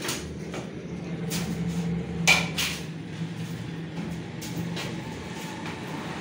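A few knocks and thumps as a puppy is lifted out of a cardboard box and set down on a stainless-steel exam table, the loudest about two seconds in, over a steady low hum.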